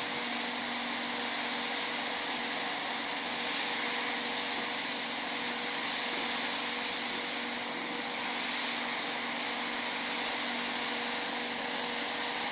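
Steady mechanical drone: a constant two-note hum under an even hiss, unchanging in level.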